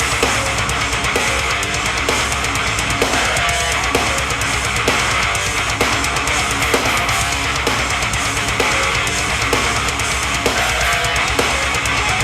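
Rock music played through a Harman Kardon Onyx Studio 5 portable Bluetooth speaker: an instrumental passage of electric guitar and drum kit with a steady beat and no singing.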